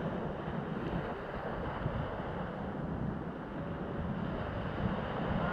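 Sea surf washing with wind buffeting the microphone, a steady rushing noise.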